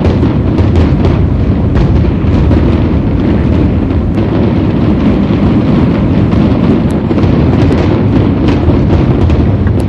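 Dense New Year's Eve fireworks: a continuous rumble of many overlapping booming shell bursts and bangs, with scattered sharp cracks and pops on top.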